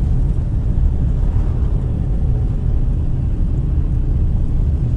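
Steady low rumble of a car driving, road and engine noise heard from inside the moving car's cabin.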